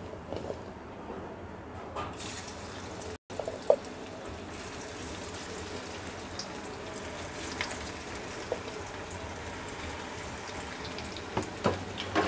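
Battered cauliflower pakoda florets deep-frying in hot oil in a kadai: a steady sizzling and crackling that grows fuller about two seconds in as the pieces go into the oil, with a few sharp knocks against the pan.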